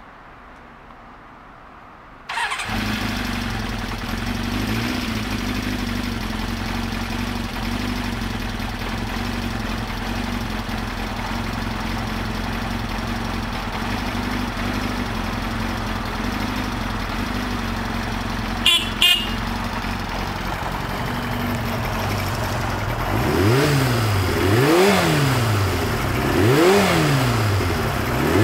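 Kawasaki Zephyr 400 air-cooled inline-four, bored up to 470 cc and fitted with FCR carburettors, starts about two seconds in and idles steadily. Two brief sharp sounds come a little past the middle, and near the end the throttle is blipped four times, the revs rising and falling each time.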